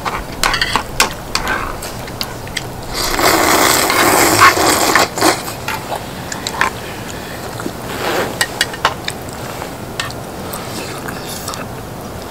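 Eating sounds close to the microphone: scattered clicks of chopsticks and chewing, a loud slurp about three seconds in that lasts around two seconds, and a shorter slurp near eight seconds.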